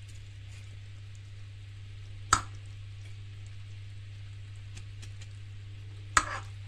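A metal spoon clinks sharply twice, a few seconds apart, while hot honey is spooned over cornflakes in silicone molds, over a steady low hum.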